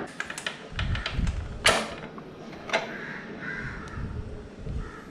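Light clicks and handling noise of a screwdriver taking out the screws of a Yamaha R15's rear brake fluid reservoir cap. Two loud, harsh, short sounds come a second apart near the middle, the first the louder.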